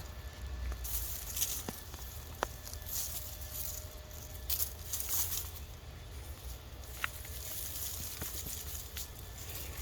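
Hands digging and rummaging through potting soil in a potato container, with irregular rustling and scraping and a few small clicks.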